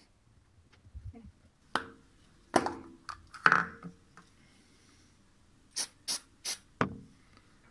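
Short knocks and clicks of a wooden block and a metal socket mounting frame being handled in a wall socket box. There are three louder knocks in the first half, then four quick clicks about three a second near the end.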